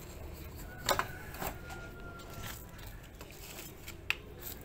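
A few light knocks and clicks as potted plants in tin cans and plastic pots are handled on a wire plant rack, over a steady low background rumble.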